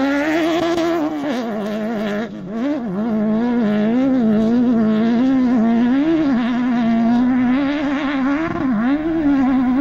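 Off-road rally buggy's engine revving hard under load on a steep dirt climb, its pitch rising and falling over and over with the throttle. There is a brief dip about two seconds in.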